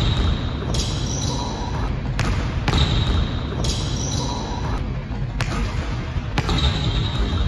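Basketball bouncing on a hardwood gym floor as it is dribbled, a few sharp bounces at uneven intervals, with short high squeaks of sneakers on the floor.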